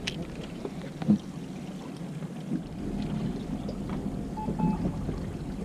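Sea water lapping and sloshing against the side of a drifting fishing boat, an even low wash with a light knock about a second in.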